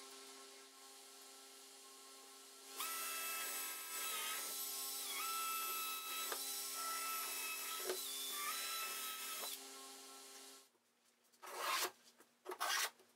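Cordless drill-driver running in the top of a plywood box, its motor whine stepping up and down in pitch several times over about seven seconds, with a few clicks. Near the end, two short scraping rubs.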